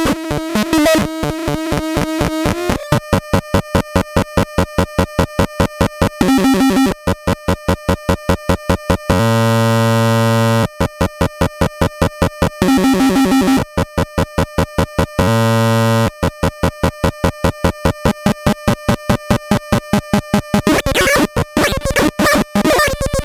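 Homemade NAND-gate square-wave synthesizer buzzing, its tones chopped into a fast pulse of about four or five beats a second, broken twice by a short steady buzz. There are jumbled, warbling tones at the start and near the end.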